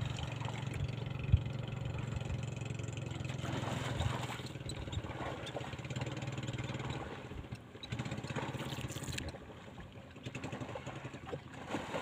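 A boat engine running steadily at low speed, a low pulsing hum that fades out about seven seconds in. A single sharp knock about a second in.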